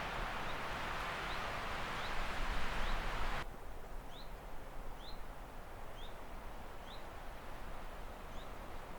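A bird repeating a short, rising chirp roughly once every three-quarters of a second, over a steady rushing noise that cuts off suddenly about three and a half seconds in.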